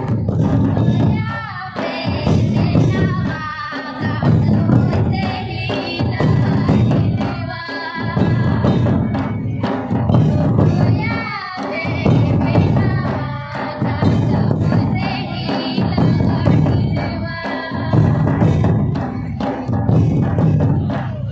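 Santali Baha dance song: singing over a steady, heavy drum beat, in repeated phrases of about two seconds with short breaks between them.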